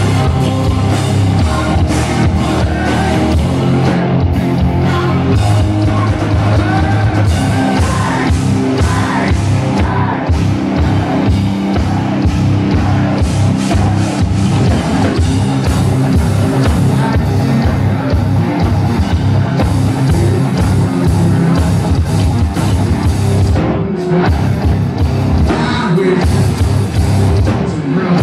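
Hard rock band playing loud live: distorted electric guitars, bass and a drum kit keeping a driving beat, with a singer's voice over the top.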